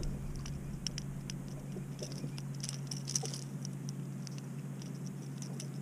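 Light, irregular clicks and taps of metal pliers working a hook free from a small fish, over a faint steady low hum.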